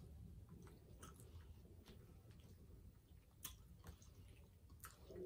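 Faint chewing of a mouthful of chicken pot pie, with a few soft clicks scattered through it, typical of a metal fork against a glass baking dish.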